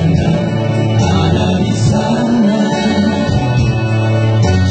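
Live music: men singing into microphones over an electronic keyboard accompaniment.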